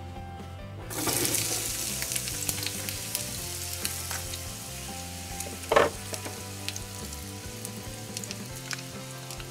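Chopped onions start to sizzle in hot oil in a small pan on a miniature electric toy stove, beginning about a second in and then frying steadily. There is a brief louder scrape or stir near the middle.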